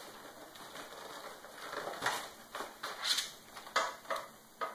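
Short rustles and light knocks from handling a lawn sweeper's metal spring tension rod against its fabric hopper during assembly, several in quick succession from about two seconds in.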